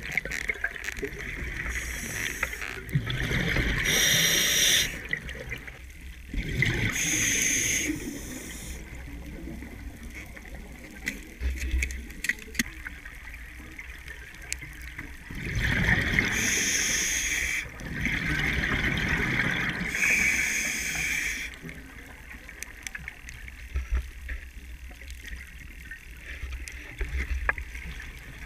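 Scuba diving breathing heard underwater: bursts of exhaled regulator bubbles, each one to a few seconds long, repeating several times, with quieter stretches of low underwater noise between breaths.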